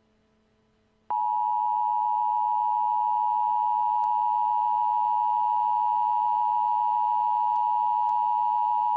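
Emergency Alert System attention signal: after a second of silence a loud, steady alarm tone comes in abruptly and holds unchanged for about eight seconds, then cuts off. It is the alert tone that comes before the spoken emergency message.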